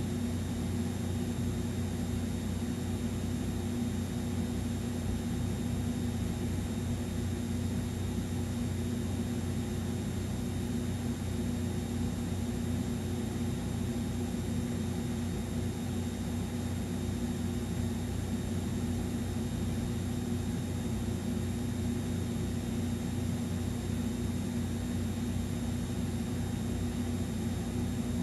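A steady low hum with a hiss over it and a faint high whine, unchanging and with no speech.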